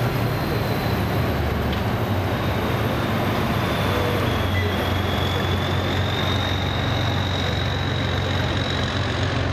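Heavy multi-axle ICBM launcher truck driving slowly past: a steady, loud low engine drone with a faint high whine above it.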